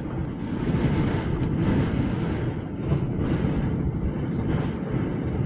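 Strong wind blowing, a loud rushing rumble that swells and eases in gusts and cuts off abruptly at the end.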